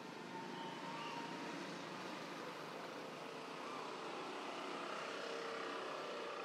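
A distant engine, a steady hum that grows a little louder about half a second in, with faint thin tones through it.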